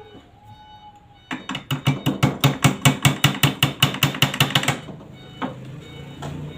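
A fast, even run of sharp knocks, about six a second, starting just over a second in and stopping about three and a half seconds later, with faint background music underneath.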